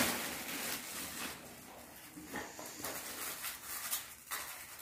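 Rustling and crinkling of cardboard sweet boxes and plastic packaging being handled and opened, with a few sharper clicks and taps.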